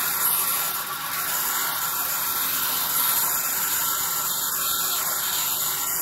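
A sawmill's vertical band saw cuts lengthwise through a hand-fed log, making a steady high-pitched hiss with a faint whine from the running blade.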